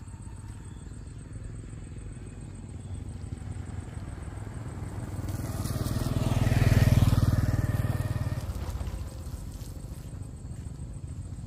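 A small motorbike passes close by on a wet dirt road. Its engine swells as it approaches, is loudest about seven seconds in, then fades as it rides away.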